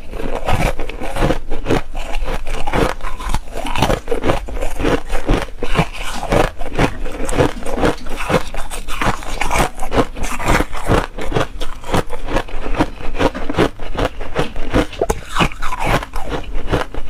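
Foam ice being bitten and chewed, a close, continuous run of many quick crunches of frozen ice.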